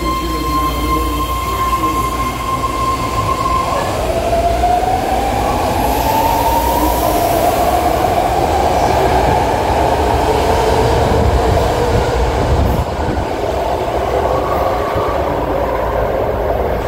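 BART legacy-fleet train (1972 Rohr A car) pulling out of a station, heard from inside the car. A steady high whine cuts off about four seconds in, then a whine climbs in pitch as the train picks up speed over a continuous running rumble.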